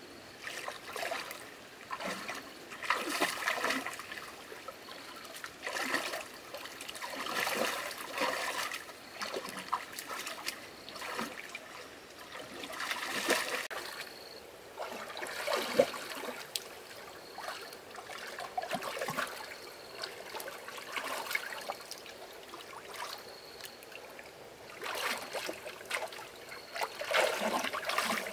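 Water splashing and trickling in irregular bursts every second or two.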